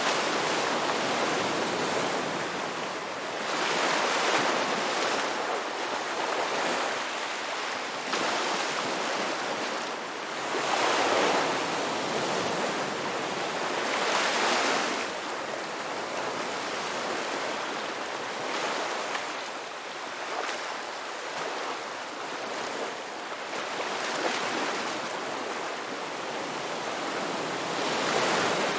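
Ocean waves breaking on a rocky beach: a steady hiss of surf that swells and falls back every few seconds, with a few stronger surges.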